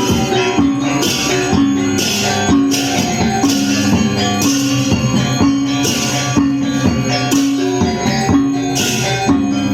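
Instrumental music: a repeating melody of held pitched notes with bright percussion crashes about once a second.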